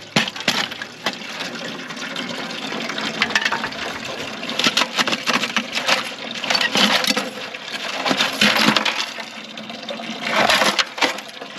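Ice clinking and cracking in a partly frozen water container, with water splashing: a quick, irregular string of sharp clinks and knocks.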